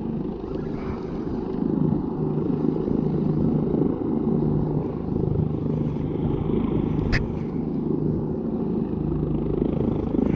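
Steady engine drone with a low, even hum, and a single sharp click about seven seconds in.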